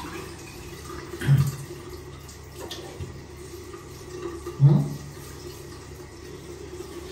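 Tap water running steadily into a ceramic vessel sink basin, with two short, louder sounds breaking in, about a second in and again near five seconds.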